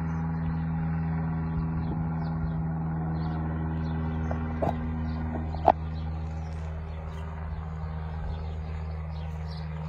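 Single-engine light propeller plane droning steadily overhead, easing off a little in the second half as it flies away. A few short sharp chirps sound around the middle.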